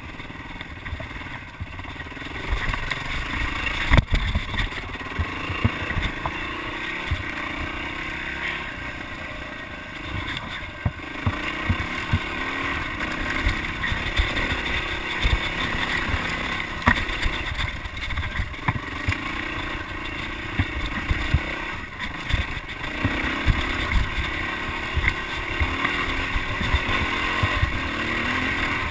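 Yamaha dirt bike engine running on a trail ride, its pitch rising and falling as the throttle opens and closes. Frequent short knocks and rattles come from the bike bouncing over rough ground, the loudest about four seconds in.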